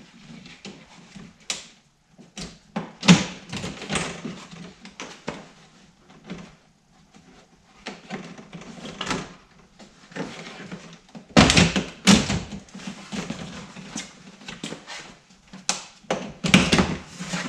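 Plastic clicks, knocks and rattles as a 2020 Subaru Crosstrek's plastic front grille is worked loose by hand, its push-down retaining clips popping free. The knocks come in loose clusters, loudest about three seconds in, around eleven to twelve seconds in, and near the end.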